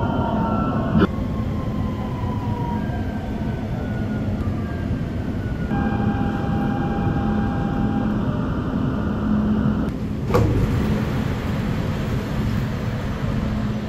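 Dubai Metro train cabin as the train brakes into a station: a steady low rumble with the electric drive's whine falling in pitch as it slows, then a steady tone for a couple of seconds once it stops. About ten seconds in, a single knock as the train doors open.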